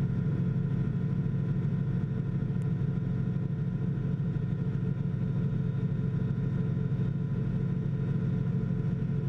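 Steady drone of the Sirius TL-3000's Rotax 912 flat-four engine and propeller in a climb, heard from inside the cockpit. It runs at an even pitch, low and humming.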